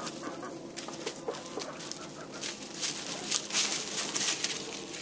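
Chickens clucking softly a few times in the first second or so, then a run of crackling and crunching in dry leaf litter underfoot, loudest in the second half.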